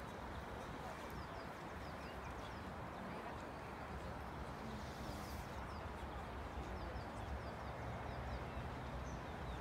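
Steady outdoor background noise with a low rumble, and small birds chirping repeatedly in the trees.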